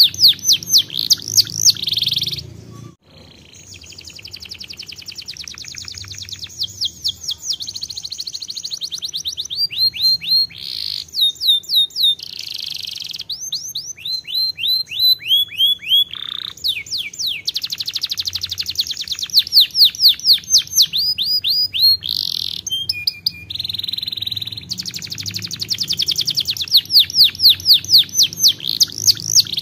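Canary singing a loud, continuous song of rapid trills: fast runs of repeated high notes, some sweeping down in pitch, in phrases that change every second or two, with a short break about three seconds in.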